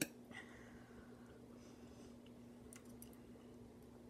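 A metal fork clicks once sharply at the start, then faint mouth clicks of quiet chewing, with a few soft ticks near the end.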